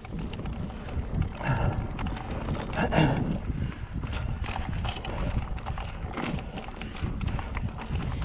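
Mountain bike clattering over rough trail, with irregular knocks and rattles over a steady rumble and wind buffeting the microphone.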